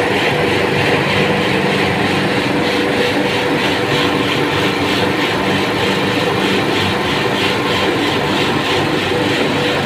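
Refrigeration condensing unit running: a steady machine hum with a constant drone and a fast, even pulsing hiss, as the compressor and condenser fan run during refrigerant charging.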